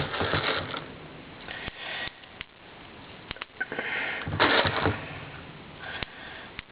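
Plastic airsoft pellets rattling into a speed loader in a few short bursts, with scattered clicks from handling the plastic loader.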